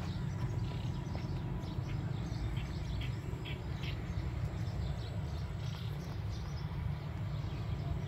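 Outdoor ambience: a steady low rumble with many faint, short, high chirps of small birds scattered through it. The greater coucal makes no call.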